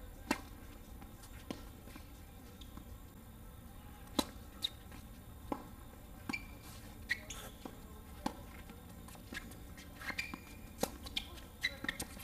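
Tennis doubles point on a hard court: sharp pops of the ball coming off racket strings and bouncing, the first from the serve just after the start, spaced about a second or more apart. Short high squeaks of tennis shoes on the court surface come in between, mostly in the second half.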